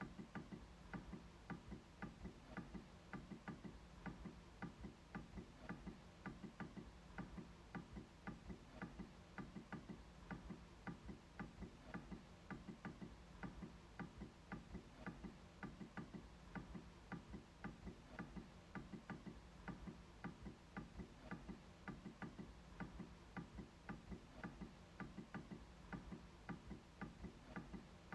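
MacBook trackpad being clicked over and over, a steady run of faint, short clicks, a few a second.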